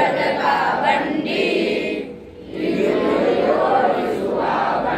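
A group of boys singing a song together in unison, reading from song sheets, with a brief pause between phrases about two seconds in.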